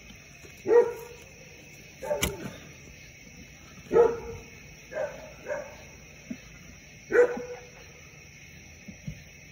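A dog barking in short single barks, about six of them spaced a second or two apart.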